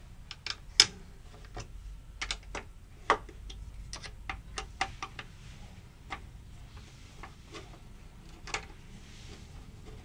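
Irregular sharp metallic clicks and ticks as a Torx key turns in the screws holding a BMW E36 front door lock latch; the tool taps and slips in the screw heads. The loudest clicks come about a second in and about three seconds in.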